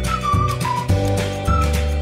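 Background music: a high, pure-toned melody line over sustained bass notes and a steady beat.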